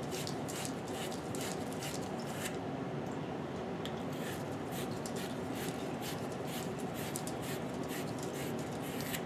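Faint scratching and rubbing from small copper fittings and tools being handled on a workbench, over a steady background hiss.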